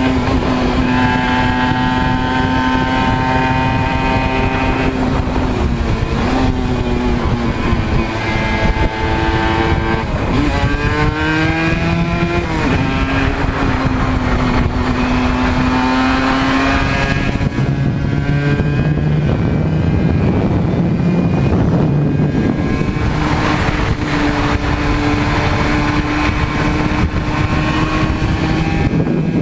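Aprilia RS125's single-cylinder two-stroke engine running hard under a riding load, its high note holding steady for stretches and shifting in pitch several times as the revs change. A constant rush of wind noise runs underneath.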